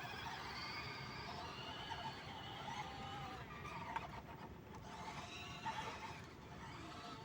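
RC truck's electric motor and gearbox whining, the pitch gliding up and down as the throttle changes.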